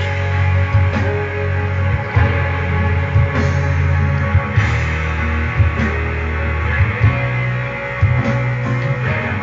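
Background music: a guitar-led song, with sustained bass notes and strummed chords, and no singing in this stretch.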